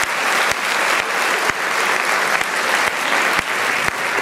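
Theatre audience applauding at the end of a performance. Sharper claps stand out at a steady pace of about two a second.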